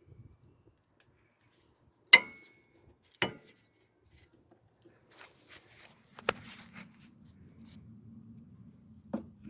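Metal tools or parts clanking: three sharp metallic clanks, the first the loudest with a brief ring. A steady low hum sets in about six seconds in, and there is a thump near the end.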